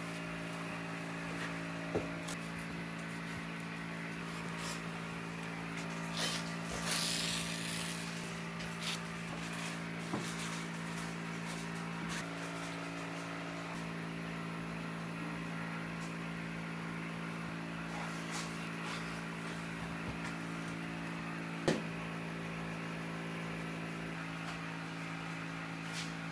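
A steady low hum runs under the kitchen work. Over it come a few light knocks of a sushi knife against the cutting board as mackerel is cut, the sharpest about three-quarters of the way through, and a brief rustle about seven seconds in.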